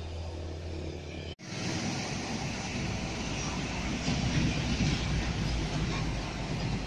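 Heavy semi-trailer truck, a tractor unit pulling a loaded, tarped flatbed trailer, passing close by. Its diesel engine and tyres make a low rumble that builds to its loudest about three to five seconds in. Before that, a steady low hum cuts off abruptly about a second and a half in.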